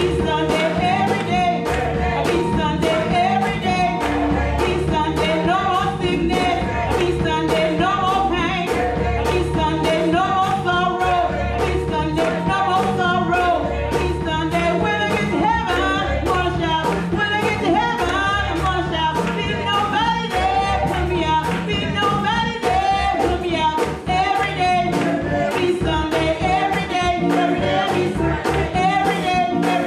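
Church gospel choir singing with band accompaniment over a steady drum beat.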